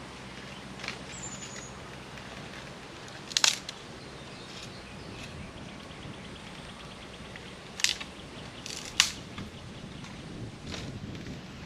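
Woody snaps, three sharp ones a few seconds apart, as brush is cleared at a camp site. A short high bird chirp sounds about a second in, and a faint rapid ticking trill runs for a second or so in the middle.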